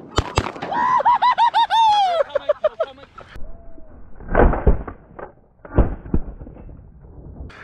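Shotgun blasts fired at landing geese: sharp cracks near the start, then two heavy booms about four and a half and six seconds in. A quick run of goose honking comes about a second in.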